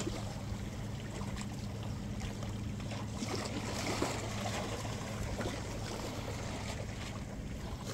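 Small waves lapping and trickling at a shoreline and wooden stairs, with a steady low hum underneath.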